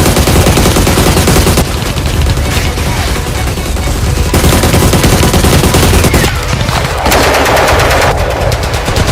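Rapid automatic gunfire, a dense loud rattle of shots that runs on with several shifts in tone, as from overlapping guns. It is the action-movie gunfire sound effect laid over a Nerf blaster fight.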